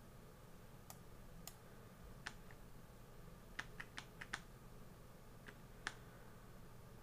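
About ten sharp clicks at a computer, scattered, with a quick run of five about halfway through, over a faint steady hum.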